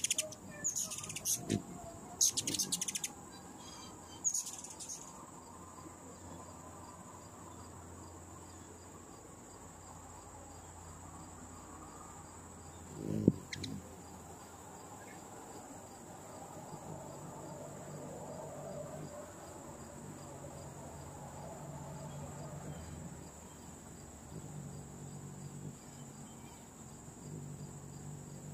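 A steady high-pitched insect trill, with several quick bursts of bird chirping in the first few seconds and a single thump about halfway through.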